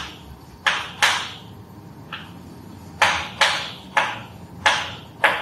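Chalk writing on a chalkboard: about eight short, sharp taps and scrapes at irregular intervals, one for each stroke of the letters.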